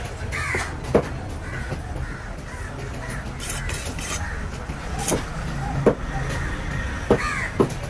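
A large fish knife chops through a tuna loin and knocks sharply on a wooden chopping board, about five times. Crows caw twice, and a steady low traffic rumble runs underneath.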